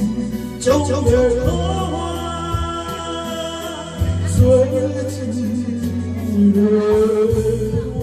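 A voice singing a slow melody with vibrato, held notes sliding up and down, over backing music of sustained bass notes and a light, regular drum beat.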